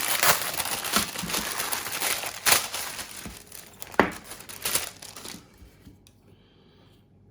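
Packaging of a tumble dryer's accessory pack crinkling and rustling as it is opened and searched through by hand, with a few sharp snaps; the rustling dies away a little over halfway through.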